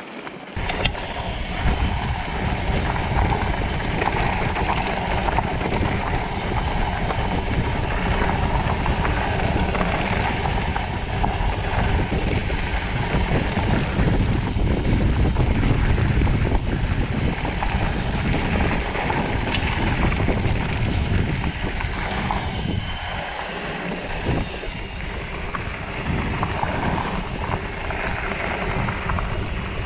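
Wind rushing over an action camera's microphone on a mountain bike riding fast down dirt singletrack, mixed with tyre and bike noise from the trail. It eases briefly a little past two-thirds through.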